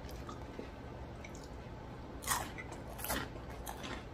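Biting into a battered onion ring, with the loudest bite about two seconds in, then chewing with a few smaller mouth clicks.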